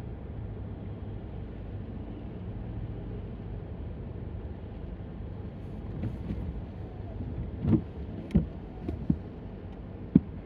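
Steady road and engine rumble of a car heard from inside the cabin while driving, with a few short, sharp knocks in the last few seconds.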